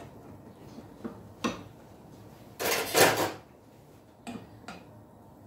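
Wooden spatula knocking and scraping in a frying pan of cream sauce set to reduce: a few light knocks, one louder clatter lasting nearly a second about three seconds in, then two more knocks as the spatula is laid across the pan.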